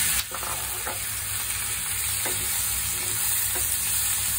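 Raw whole shrimp sizzling in hot butter with browned garlic in a frying pan, with a wooden spatula stirring them and knocking against the pan now and then.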